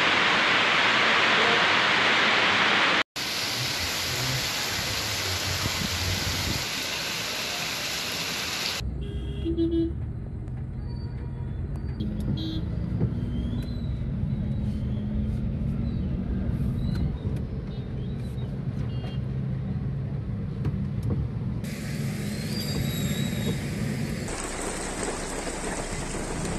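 Heavy rain hissing steadily for the first several seconds. Then the low rumble of a car driving through a waterlogged street, heard from inside the cabin, with a few short horn toots. The rain noise comes back near the end.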